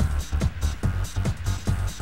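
Electronic dance music with a fast, steady kick-drum beat.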